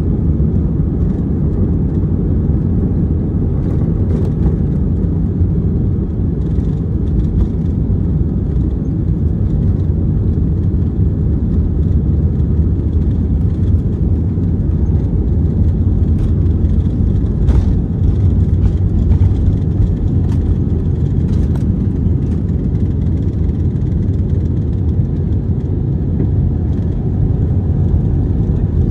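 Steady low roar of engine and airflow inside the cabin of an Airbus A319 airliner in flight, with a few faint clicks.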